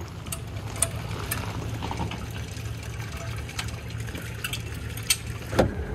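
A boat being loaded onto its trailer at a ramp: water sloshing around the hull and trailer over a steady low rumble, with scattered metallic clicks from the trailer's bow winch and strap and a louder clunk near the end.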